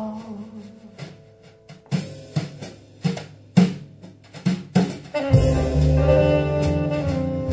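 Recorded music played back over a hi-fi system: the end of a sung track fades away, then a drum kit plays a string of separate strikes for about three seconds, and about five seconds in a saxophone with band and bass comes in with held notes.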